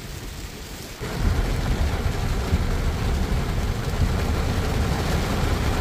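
Heavy rain on a car, heard from inside the cabin. About a second in, a loud low rumble comes in suddenly and holds steady under the rain noise.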